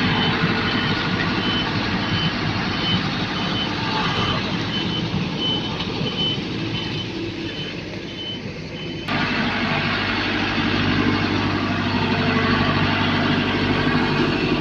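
Heavy road-construction machinery running, with a reversing alarm beeping about twice a second. The beeping stops abruptly about nine seconds in, leaving a steady diesel engine drone.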